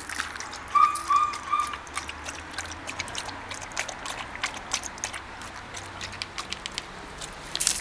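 A dog lapping water from a plastic tub: a quick, uneven run of wet clicks and splashes. About a second in, three short whistle-like notes of one steady pitch sound over it, louder than the lapping.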